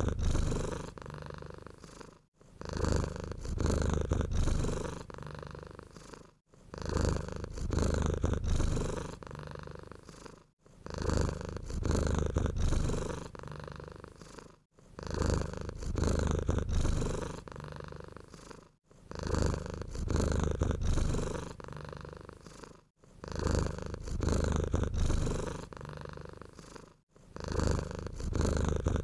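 Domestic cat purring, a low rumble that swells and fades in a cycle about every four seconds, with a brief break between cycles.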